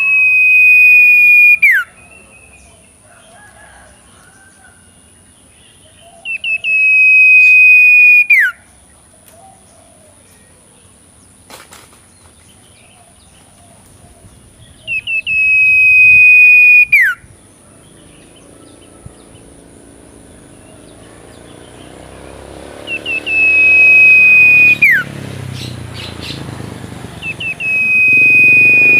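A two-month-old young bird giving five loud whistled calls, several seconds apart. Each call is a few quick short notes, then a long steady whistle that drops sharply in pitch at the end. A rustling background noise builds in the later part.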